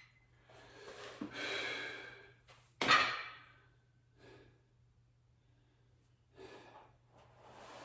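A man breathing hard and sighing out with effort during lat pulldown reps, in several long exhales, with a sharp, loud one about three seconds in.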